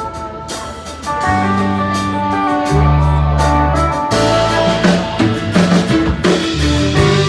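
Live country band playing an instrumental passage with no singing: bowed fiddle, acoustic and electric guitars, and a drum kit, over low bass notes that change about once a second.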